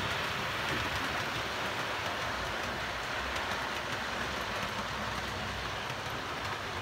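OO gauge model train, a diesel locomotive hauling a rake of passenger coaches, running along the layout's track: a steady rolling rush of the wheels on the rails.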